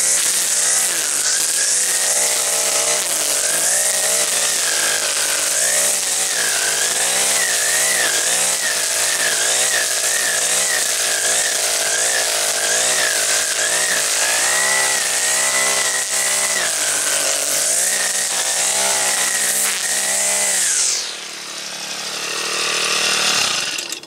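String trimmer with a four-stroke Honda GX50-clone engine running at high throttle, its pitch wavering up and down as the line cuts through grass and brush. About three seconds before the end the throttle is let off and the engine winds down with a falling pitch, then falls away sharply at the very end.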